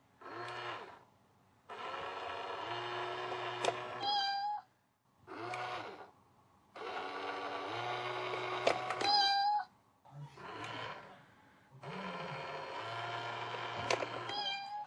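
Electronic toy playing a recorded cat-like meow sound on a loop. Each cycle is a short call, then a longer call ending in a rising squeal, repeating about every five seconds.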